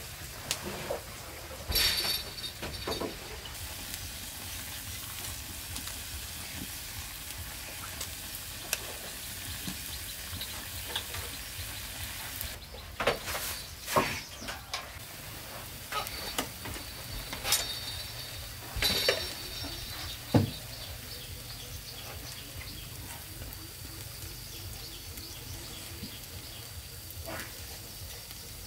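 A metal ladle scrapes a pot and clinks against ceramic bowls as porridge is served out, with ceramic bowls knocked down onto a wooden table. The clinks and knocks come scattered, some of them ringing briefly, over a steady faint hiss.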